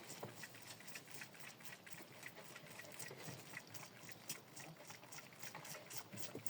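Faint rustling and irregular small clicks of goat kids moving in hay and nibbling at it.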